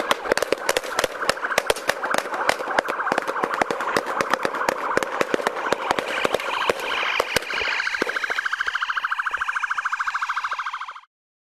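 Police car siren wailing, with many sharp, irregular knocks and thumps over the first eight seconds. About eight seconds in, the siren switches to a fast pulsing tone, and then the sound cuts off abruptly.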